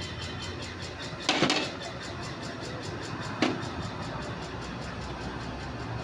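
Engine running steadily with an even ticking, about four beats a second. Two sharp metallic knocks come through it, a loud one about a second and a half in and a shorter one about two seconds later.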